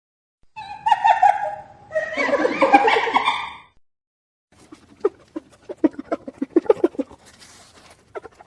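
Hyena calls: two short pitched calls, then after a pause a fast run of staccato hoots, about four or five a second, the high-pitched giggle that gives the laughing hyena its name.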